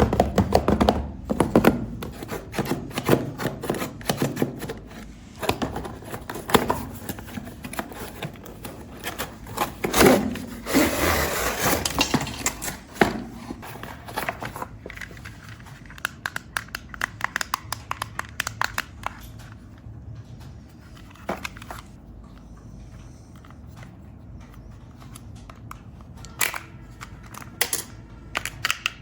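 Hands handling plastic toy parts and packaging: irregular clicks, snaps and rustling, busiest in the first half, with scattered sharp clicks near the end.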